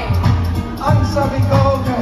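Karaoke backing track playing over a PA system, with a steady bass line and beat, and singing over hand-held microphones.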